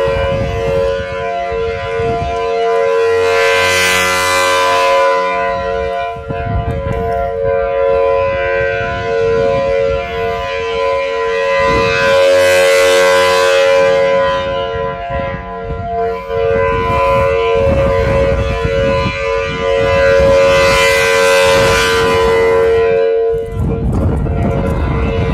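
Federal Signal Thunderbolt outdoor warning siren sounding a steady tone on test. Its sound swells and fades about every eight or nine seconds as the rotating head sweeps past.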